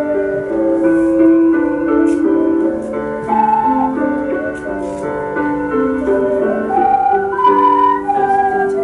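Ocarina ensemble playing a melody in several parts, with held notes stepping from pitch to pitch over sustained lower voices.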